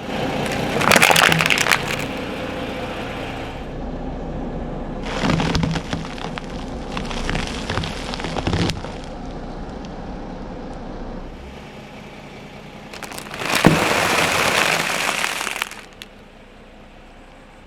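Car tyre rolling over and crushing crunchy objects: loud cracking and snapping in three spells, the last one dense and the loudest, over a steady lower background.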